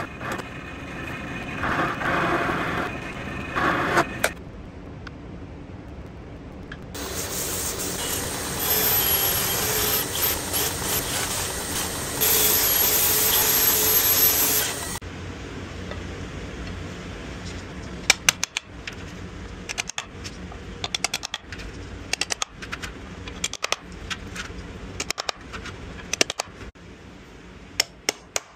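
A run of workshop tool sounds: a drill press boring into a wooden board, then several seconds of a power tool running loudly and steadily, then a small mallet tapping metal pins into the board, with many sharp taps in the last ten seconds.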